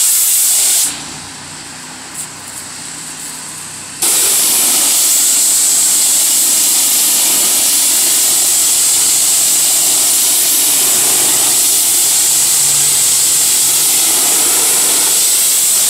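High-pressure washer spray hitting brick, a loud steady hiss, as graffiti-removal solution is blasted off the wall. The spray stops about a second in, leaving the washer's engine running lower, and starts again about four seconds in.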